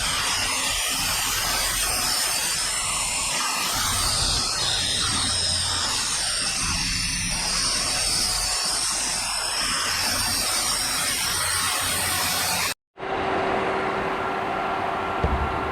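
CNC milling machine running and cutting metal, a steady hissing rush. It cuts out briefly about thirteen seconds in and returns as a steadier machine hum with a high whine.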